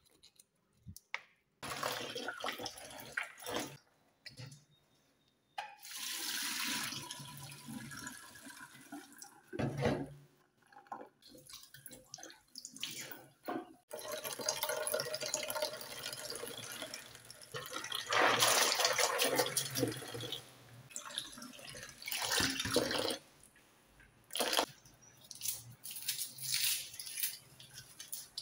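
Tap water running and splashing into a plastic bowl in a stainless steel sink, in several stop-start stretches, while soaked black-eyed beans are swished and rubbed by hand in the water to loosen their skins.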